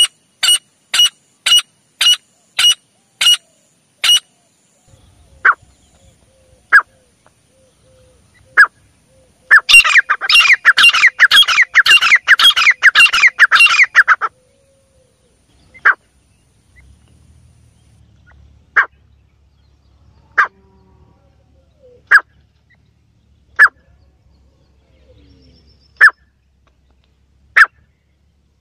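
Teetar (francolin) calling loudly: a quick run of sharp calls at the start, then single calls every second or two, with a dense, rapid stretch of calls from about ten to fourteen seconds in.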